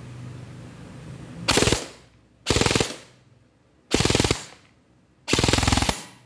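Airsoft gun firing full-auto with its muzzle in a chronograph: four short bursts at about 20 rounds a second, each under a second long, the last a little longer.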